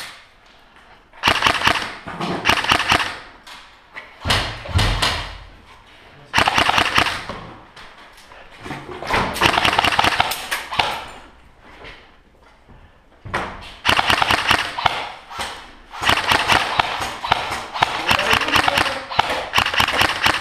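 Airsoft rifles firing in repeated short bursts of rapid clicking shots, with a low thump about four seconds in.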